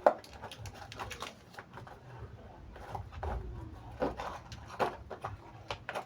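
Packaging being opened by hand: irregular crinkling, rustling and small clicks of plastic wrapping and a box as a gas regulator is unwrapped.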